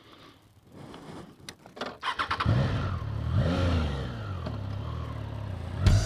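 Triumph Tiger 660 motorcycle's three-cylinder engine starting about two seconds in after a few clicks, given a short rev, then idling steadily.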